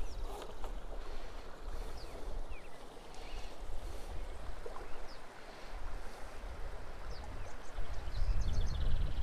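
Outdoor river ambience: the river running, with wind rumbling on the microphone that gusts stronger near the end. Short, high bird chirps come and go over it.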